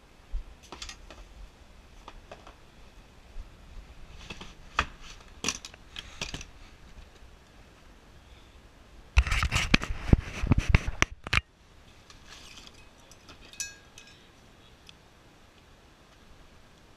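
Hands handling gear in an orange hard-shell medical case holding an oxygen kit: scattered clicks, knocks and scrapes of plastic and metal. About nine seconds in, a loud, dense cluster of knocks and rustle lasts about two seconds and cuts off sharply.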